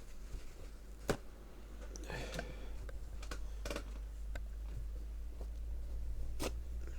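Handling noises in a small room: a sharp click about a second in, a short rustle, then a few more scattered clicks, over a low steady hum.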